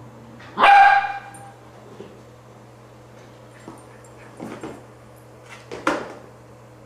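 A wire fox terrier and a miniature schnauzer playing with squeaky toys, including a rubber chicken. About half a second in comes one loud, drawn-out squeal held at a steady pitch, and two shorter, sharper squeaks or yips follow near the end.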